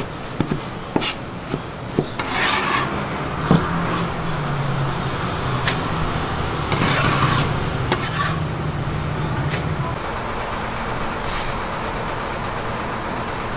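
A steel cleaver knocks on a wooden chopping board and scrapes through a heap of glass noodles. It then sweeps the noodles off the board into a stainless steel bowl in several short rasping swishes. A low steady hum sits underneath through the middle.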